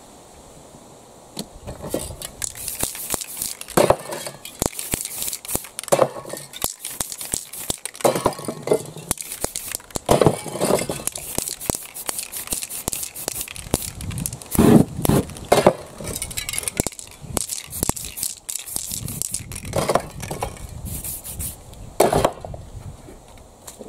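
Aerosol spray-paint cans hissing in repeated bursts, starting about two seconds in, mixed with sharp clicks and knocks and the crinkle of paper being handled.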